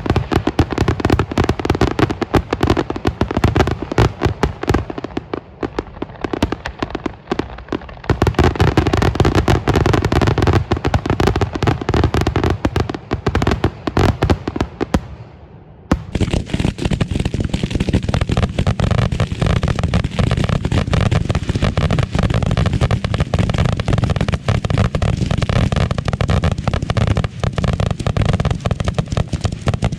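Firework finale barrage of 2.5-inch aerial shells going off in rapid, overlapping succession: a nonstop stream of booms and bangs. It thins out briefly about five seconds in, then picks up again, and the sound changes abruptly about halfway through.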